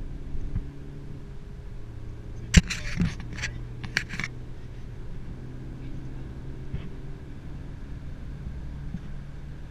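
Renault Mégane RS 275's turbocharged 2.0-litre four-cylinder engine droning steadily, heard from inside the cabin. Between about two and a half and four and a half seconds in comes a cluster of sharp clicks and knocks, the first one the loudest.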